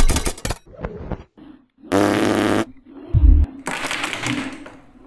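A string of cartoon sound effects: a rattling clatter, then a loud buzzing blast about two seconds in, a deep thud just after three seconds, and a hissing puff that fades away.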